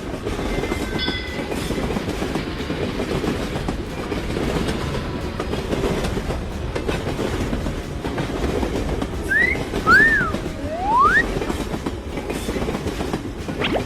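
Train running on the rails with a steady rumble. About two-thirds of the way through, three short whistle-like tones slide up, or up and back down.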